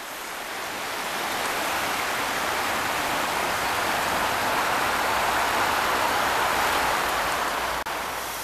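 The River Banwy running shallow over stones and small rapids: a steady rushing of water that builds over the first couple of seconds, with a brief break shortly before the end.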